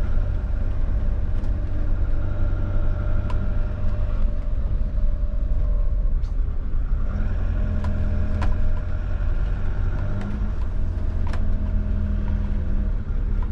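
Motorhome on a Fiat Ducato chassis driving, heard from inside the cab: a steady diesel engine note with road rumble, and a few faint ticks.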